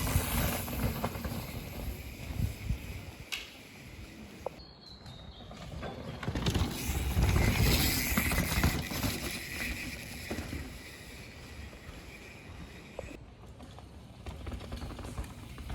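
Mountain bikes riding down a rooty dirt trail: tyre rumble, wind on the microphone, and scattered knocks and rattles, swelling and fading as the riding goes on.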